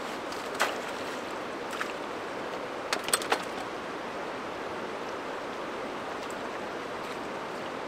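River water running steadily, with a few short sharp clicks about half a second in, near two seconds, and a quick cluster around three seconds.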